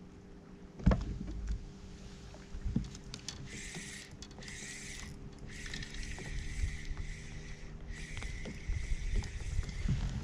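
A fishing reel being wound in from about three and a half seconds in, a whirring hiss in four spells with short pauses between them. There are knocks against the kayak hull, the loudest a sharp knock about a second in.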